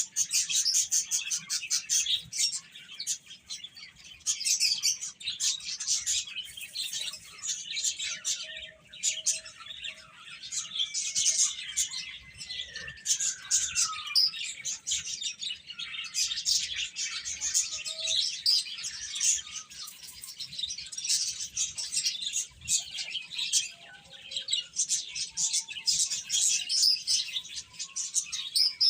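A group of baby chicks peeping continuously, many short high-pitched chirps overlapping, with one longer falling call about twelve seconds in.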